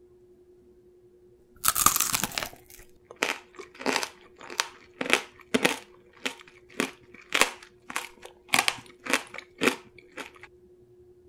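Tanghulu being eaten: a bite cracks the thin, hard sugar-glass shell with a loud crunch about two seconds in. It is followed by about a dozen crisp crunching chews, roughly two a second, as the candy shell and fruit are chewed.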